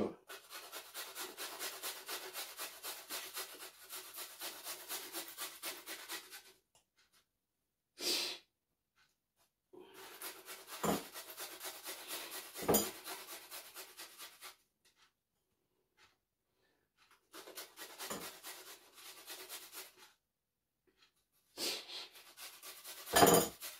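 Garlic cloves being grated on a small hand grater: fast, regular rasping strokes, about four a second, in several runs with pauses between them. A few sharp knocks fall in between the runs.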